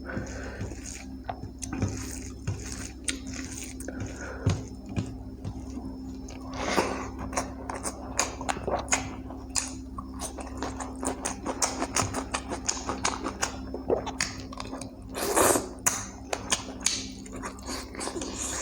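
Close-up eating sounds of chicken curry and rice: chewing with many small wet clicks and smacks, and two longer, louder wet sounds about seven and fifteen seconds in. A steady low hum runs underneath.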